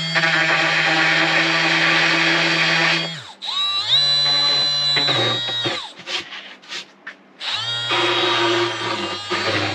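Milwaukee orbital detail sander with 80-grit paper, running in three bursts against the tear-out edges of a wooden panel. It stops about 3 s in, starts again about a second later with a rising whine, stops again around 6 s, and starts once more near 7.5 s.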